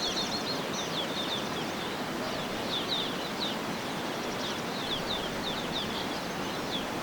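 Birds chirping in quick runs of short, high notes over the steady rushing of the waterfalls.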